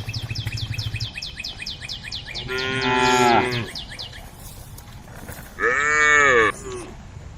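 Cows mooing: two long calls, one about two and a half seconds in and another near six seconds, the second rising then falling in pitch. A fast, high chirping trill runs behind them through the first half.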